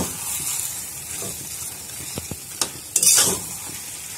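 Eel fish pieces frying in masala in a metal kadai, sizzling steadily while a steel spoon stirs them. The spoon knocks the pan with a few sharp clicks around two seconds in, then a louder scrape follows about three seconds in.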